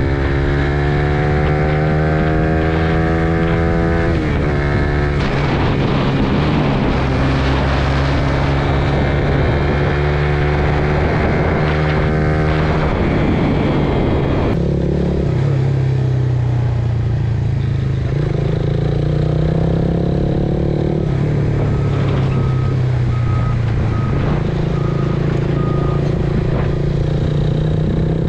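Suzuki Raider R150 Fi motorcycle's single-cylinder engine running under way on an aftermarket Aracer ECU, its pitch climbing as it accelerates and dropping at the gear changes about four and twelve seconds in, then steadier cruising.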